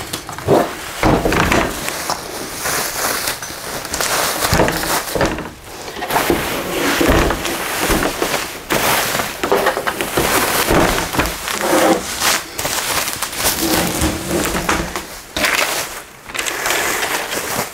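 Packaging being handled: plastic and cardboard rustling and crinkling, with scattered knocks and scrapes throughout.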